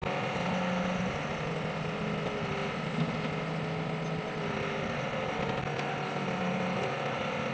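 Old Sumitomo hydraulic excavator's diesel engine running steadily as the boom and bucket swing, with a low hum that comes and goes as the hydraulics work.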